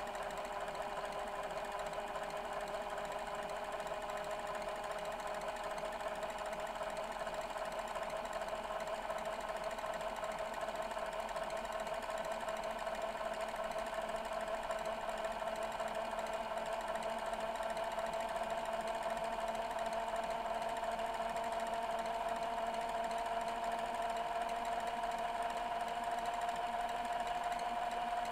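Panasonic NV-VX3A VHS-C camcorder rewinding a tape: a steady motor whine over a faint mechanical whirr, slowly rising in pitch and getting slightly louder.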